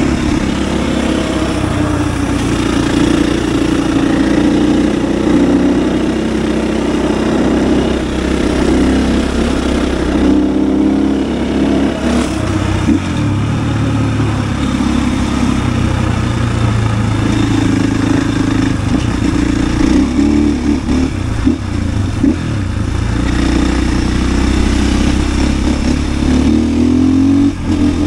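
KTM EXC-F 500's single-cylinder four-stroke engine running hard under way, its revs rising and falling again and again.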